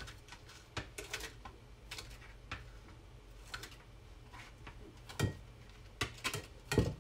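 Scattered light taps and knocks of kitchen work on a cutting board, irregular rather than a steady chopping rhythm, with two louder knocks near the end, over a low steady hum.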